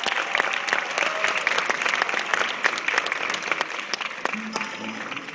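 Audience applauding, many hands clapping at once, the clapping fading away near the end.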